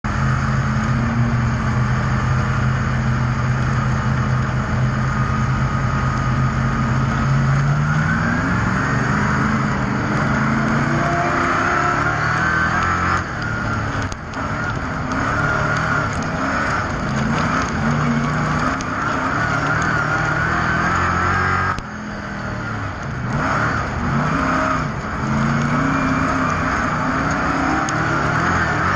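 Speedway race car engines running at a steady, even pitch, then from about eight seconds in revving up and backing off again and again as the cars accelerate.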